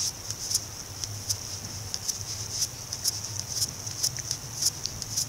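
Fingers swiping and tapping on a tablet's touchscreen: faint, irregular ticks about two a second over a steady hiss and low hum.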